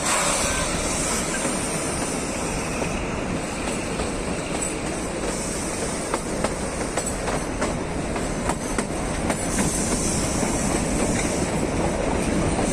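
Kalka–Shimla narrow-gauge toy train running, a steady rumble of the coaches on the track with sharp clicks of the wheels over rail joints in the middle.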